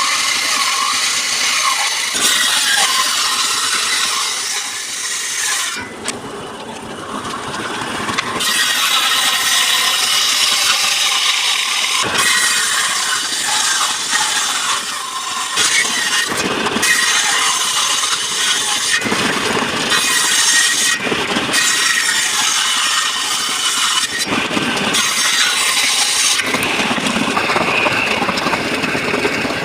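Wood being sawn and worked with power tools, a dense steady noise that changes abruptly every few seconds.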